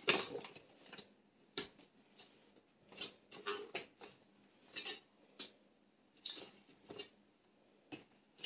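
Soft crinkling of a silver foil food-storage bag, in short separate rustles about a second apart, as its top is pressed shut between the plates of a hair-straightening iron for a heat seal.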